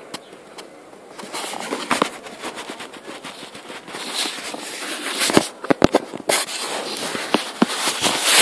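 Crackling, rustling handling noise from a phone's microphone as the phone is moved about and rubs against a wool scarf and sweater. A cluster of sharp knocks comes about five to six seconds in.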